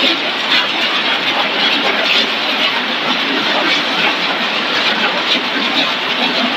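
Machinery running on a food extrusion production line: a steady, loud mechanical clatter with faint irregular rattles and no change in pace.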